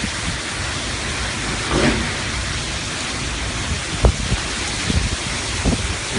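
Torrential rain and gale wind in a tropical storm: a steady, dense hiss that swells briefly about two seconds in, with a sharp knock about four seconds in.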